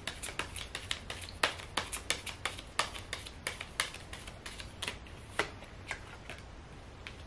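A deck of tarot cards being shuffled by hand: a quick, uneven run of crisp card snaps and flicks, several a second, that thins out near the end as a card is drawn.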